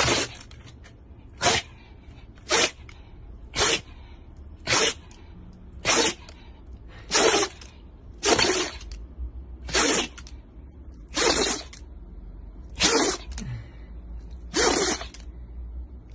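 Shiba Inu dog sneezing over and over: about a dozen short, sharp sneezes, roughly one every second and a bit, coming slightly further apart toward the end.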